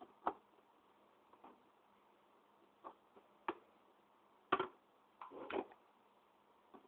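Scattered plastic clicks and knocks from handling the lid of an old drip coffee maker: about half a dozen separate taps, the loudest about four and a half seconds in, with a short cluster just after five seconds.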